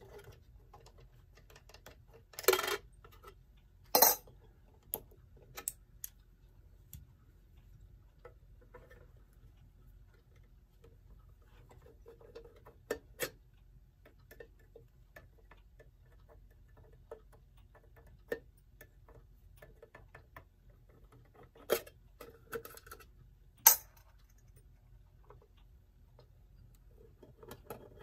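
Scattered clicks, clinks and knocks of a screwdriver, screws and small metal parts handled while a mantel clock case is taken apart, with no steady rhythm. The loudest are a short rattle about two and a half seconds in and sharp knocks about four and twenty-four seconds in.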